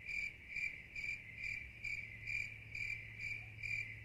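A cricket chirping steadily with short, high-pitched chirps about three times a second.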